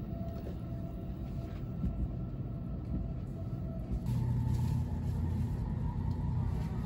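Running noise inside the cabin of a Tokaido Shinkansen N700-series Kodama train under way: a steady low rumble, getting louder about four seconds in.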